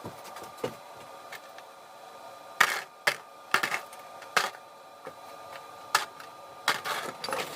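Irregular sharp clicks and clacks of small tools and parts being handled on a workbench during a chainsaw teardown, the strongest a little under three seconds in, over a faint steady hum.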